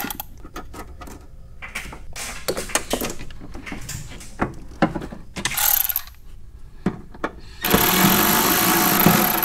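Cordless electric ratchet whirring in a short burst about halfway through and a longer run near the end, driving down the nut on a chassis ground wire terminal. Between the runs there are clicks and knocks of parts and wires being handled.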